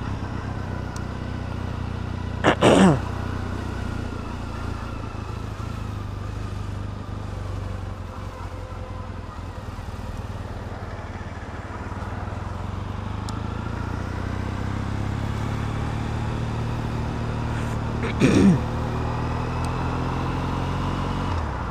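Triumph Bonneville T100 parallel-twin engine, on aftermarket exhausts, running at low speed while filtering through slow traffic; its note eases off about eight seconds in, then picks up again. Two brief voice sounds break in, about three seconds in and again about eighteen seconds in.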